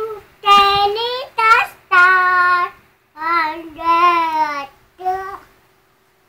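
A three-year-old boy singing: a run of about six short phrases of held notes, with brief pauses between them.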